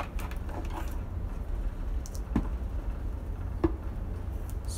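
A few short clicks and knocks as the rocket is drawn out of a Pains Wessex line-throwing appliance canister on its steel wire, over a steady low hum.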